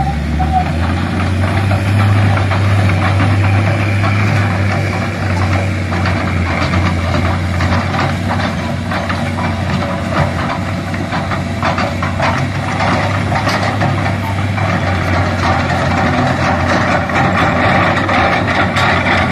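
Hitachi Zaxis 210F excavator's diesel engine running steadily at a low hum, with sharp clicks and knocks in the second half as the machine works.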